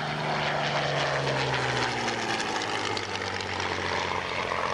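A WWII propeller fighter with a V12 piston engine flies past. Its engine drone falls steadily in pitch as it goes by.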